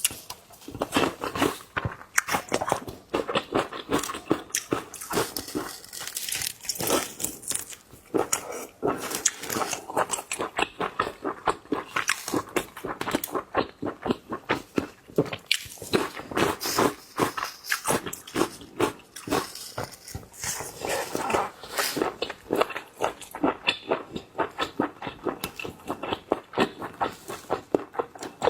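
Close-miked ASMR eating of large shrimp: bites, crunches and wet chewing and mouth smacks, coming in quick irregular bursts.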